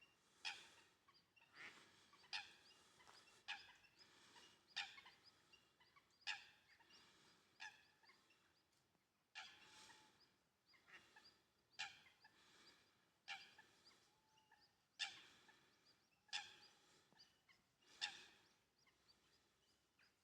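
A waterbird giving short, sharp calls over and over, about one every second and a half; the calls are faint.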